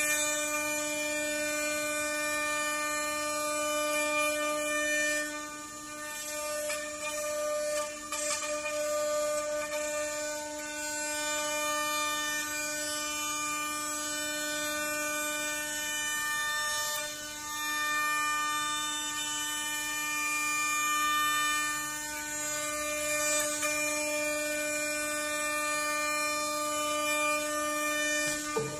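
CNC wood router spindle running with a steady high whine while its bit cuts a wooden door panel. The cutting noise dips briefly a few times as the head moves.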